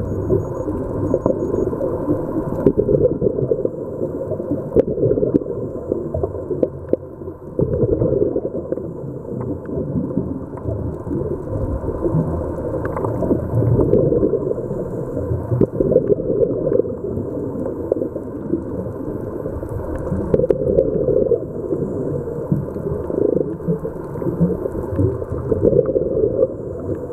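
Muffled underwater noise heard through a camera housing: a scuba diver breathing on a regulator, with louder bubbling surges every few seconds as exhaled bubbles rise.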